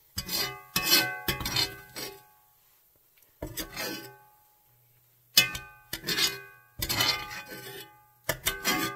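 Background music of strummed plucked strings: a series of chords that ring out and fade, with short pauses between them.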